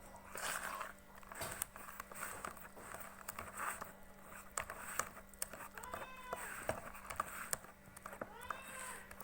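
A domestic cat meowing, two arching calls in the second half, among scattered sharp clicks and taps.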